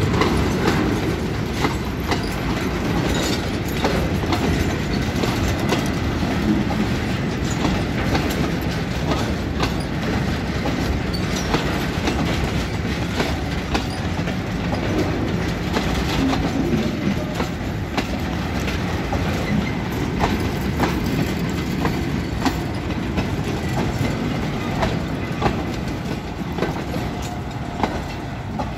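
Freight train of bogie oil tank wagons rolling past at close range: a steady rumble of steel wheels on rail, with frequent irregular clicks and clacks as the wheels run over the rail joints.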